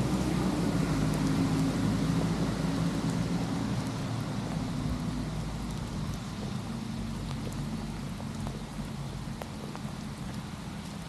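Steady rain falling on a park path and trees, with scattered single drops ticking close by. A low steady hum fades away over the first half.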